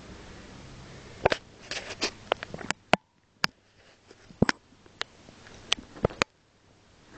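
A mother cat and her kitten play-fighting: irregular scuffling with sharp taps and clicks from paws and claws, coming in quick clusters from about a second in until near the end.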